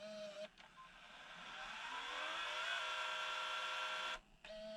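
Sony CCD-TRV328 Hi8 camcorder's tape transport rewinding the cassette: a faint whine that rises in pitch for about a second and a half as the reels speed up, holds steady, then cuts off suddenly about four seconds in. A short steady tone sounds at the start and again near the end.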